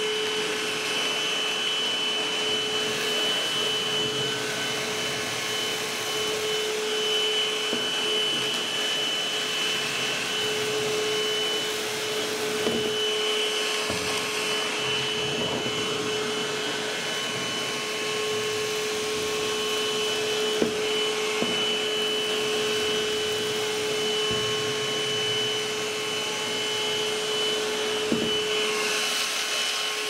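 Novete Wet & Dry battery handheld vacuum cleaner running steadily with a constant whine while sucking small loose debris off a hard tabletop, with a few sharp ticks.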